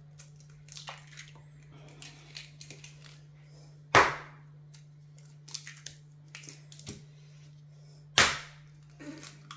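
Eggs cracked against the rim of a mixing bowl: two sharp knocks about four seconds apart, with faint clicks and rustles of eggshell being pulled apart between them.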